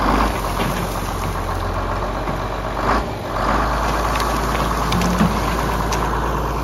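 John Deere tractor's diesel engine running steadily, growing a little louder about three seconds in.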